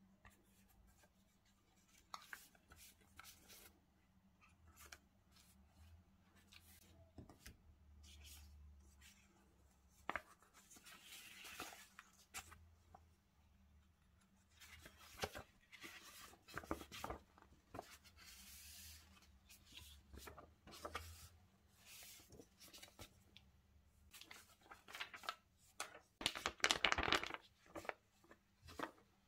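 Paper and thin card rustling, sliding and crinkling as gloved hands open a cardboard document sleeve and take out a paper leaflet and a sheet of Apple stickers; the sound comes in short scattered strokes, loudest about three seconds before the end.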